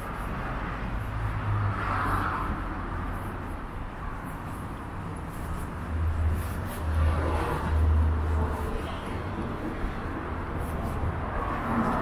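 City street traffic: road vehicles running past, a steady hiss of traffic with a low rumble that swells about six to eight seconds in.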